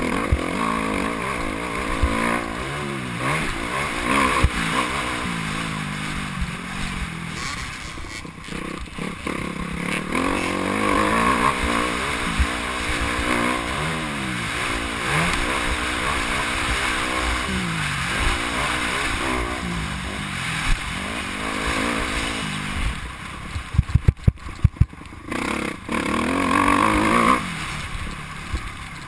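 Motocross bike engine heard from a helmet-mounted camera, revving up and dropping back over and over as the rider accelerates and shifts around the track. A cluster of sharp knocks comes about 24 seconds in.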